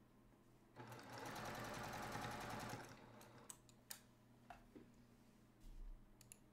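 Domestic sewing machine running for about two seconds, starting about a second in, stitching a short seam through the fabric pieces. Then a few light clicks.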